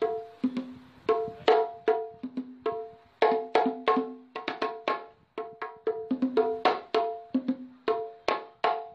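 A pair of East Javanese kendang hand drums being played by hand in a quick dangdut-style rhythm to try out their sound. Sharp slaps mix with open strokes that ring at a low and a higher pitch, about three to four strokes a second.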